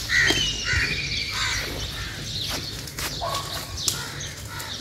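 Crows cawing in the background, several calls mostly in the first half, over the hum of the open air.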